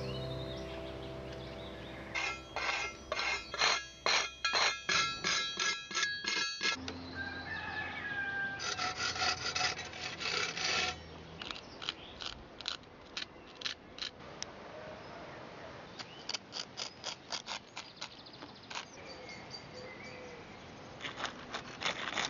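A small metal blade scraping and carving dried cob (clay and sand) on a statue's helmet, in runs of quick, rhythmic strokes with pauses between them.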